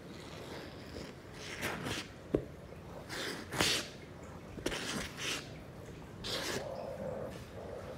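Plastic slicker brush rasping through a cat's fur in about five short, scratchy swishes, with a few sharp clicks in between.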